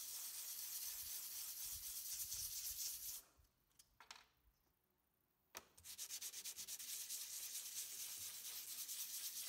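Hand sanding with a perforated sanding disc rubbed back and forth against the work on a bench: a scratchy rubbing that stops about three seconds in. After a couple of light clicks it starts again about five and a half seconds in, in quick, even strokes.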